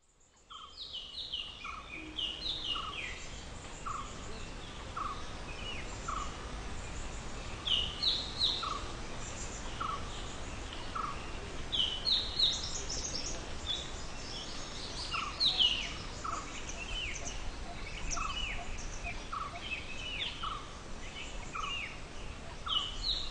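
Birds chirping, with many short downward-sweeping calls over a lower call repeated evenly about once a second and a steady background hiss. The ambience fades in at the start.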